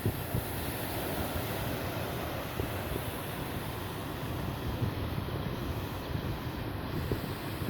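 Wind buffeting the microphone in a steady low rumble, with a few brief louder gusts, over the wash of the sea.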